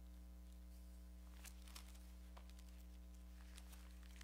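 Near silence: a few faint rustles and flicks of thin Bible pages being leafed through, over a steady low electrical hum.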